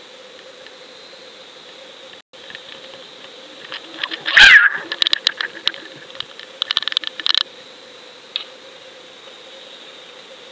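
Underwater camera housing's steady electrical hum and hiss, broken midway by a loud squeak falling in pitch and then a clatter of sharp clicks, with one more click near the end.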